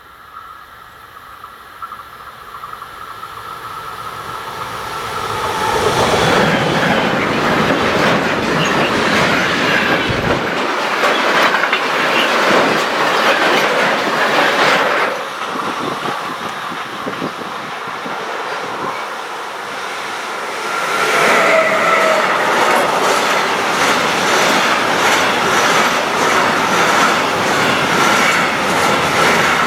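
A train approaching and passing close by, growing louder over the first several seconds. Its wheels then clatter steadily over the rail joints, with a rhythmic clickety-clack that is strongest in the second half.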